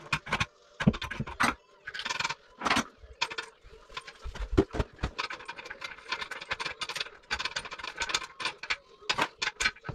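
Metal hand tools scraping, clinking and knocking against a porcelain toilet as it is taken apart, in an irregular run of short scrapes and clicks.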